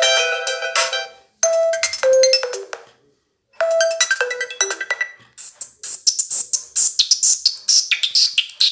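Microsoft Lumia 535 ringtones playing. A short synthesized melodic phrase loops with brief gaps, then about five seconds in a different ringtone starts, with quick, bright percussive hits.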